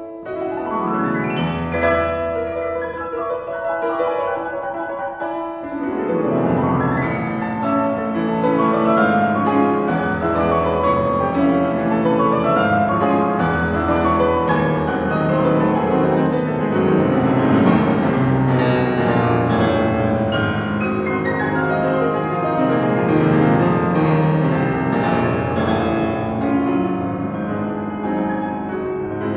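Steinway grand piano played solo in a fast, virtuosic passage: sweeping runs across the keyboard near the start and again about six seconds in, then a long stretch of loud, dense chords over deep held bass notes.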